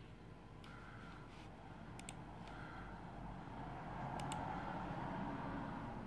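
Computer mouse clicking: two quick pairs of sharp clicks, about two seconds in and again about four seconds in, over faint room noise.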